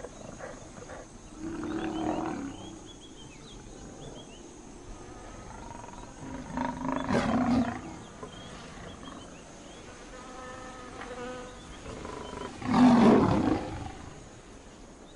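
Lion growling in three loud bouts, the last the loudest, with faint high chirping calls in between.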